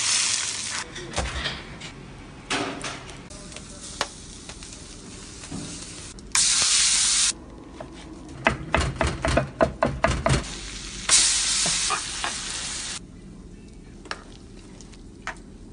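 Hot food sizzling in several short bursts that start and stop abruptly, with a quick run of sharp knocks in the middle and light kitchen clatter between.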